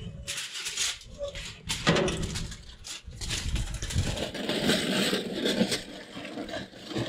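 Aluminium foil crinkling and rustling as it is folded and tucked down by hand, with irregular sharp crackles.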